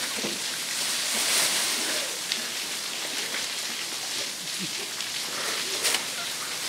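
Falling water making a steady, even hiss, with a few faint ticks and splashes.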